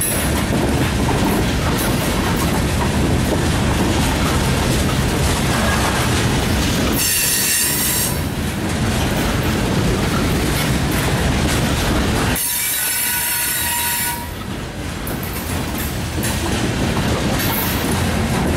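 Loaded-train coal hopper cars rolling past close by, steel wheels on rail giving a steady heavy rumble. Twice, about seven seconds in and again from about twelve to fourteen seconds, the wheels give a brief high squeal.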